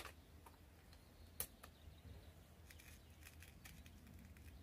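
Faint handling noises while an air rifle is being reloaded: a sharp click right at the start and another about a second and a half in, then a run of small light clicks and rattles in the second half as a hand works at the bench.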